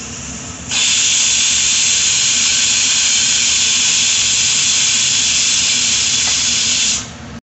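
Pressure cooker whistle: steam hisses steadily from the vent, then about a second in bursts out much louder as the weight lifts, and cuts off suddenly near the end. This is the cooker reaching full pressure on high heat and giving the single whistle the curry is cooked to.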